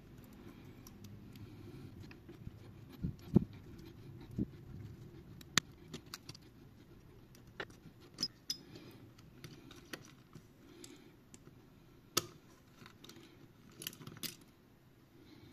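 Scattered light clicks and taps of metal tweezers and fingertips on a smartphone's frame and internal parts, as a board and its flex cable are pried free and lifted out. About a dozen separate clicks over a faint low background, the sharpest a little over three seconds in and about twelve seconds in.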